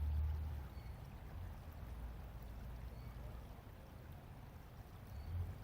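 Wind gusting on the microphone, a low rumble at the start and again near the end, over a steady faint hiss of outdoor background noise.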